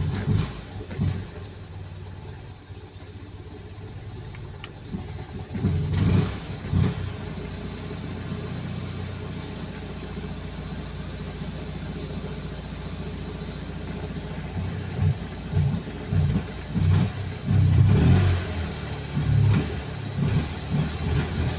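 Fiat 126p's air-cooled two-cylinder engine being started and sputtering: it fires unevenly, runs roughly for several seconds in the middle, then stumbles again with irregular bursts. It is not starting and running cleanly.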